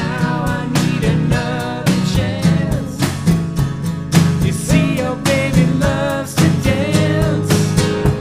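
A rock band playing, with guitars, bass and drums keeping a steady beat under a wavering melodic line.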